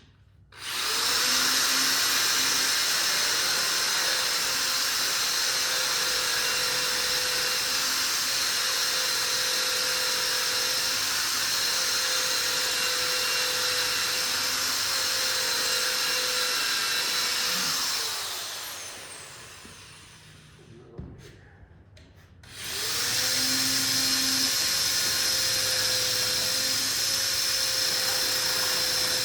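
A concrete drill boring down into a concrete slab, running at a steady pitch in two long runs. It spins down for a few seconds partway through, a single click follows, and then it runs again.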